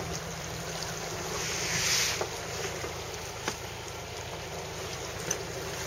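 Wind and sea noise on a sailing yacht's deck, a steady rushing with wind on the microphone. The rushing swells briefly about two seconds in, and there are a few faint clicks.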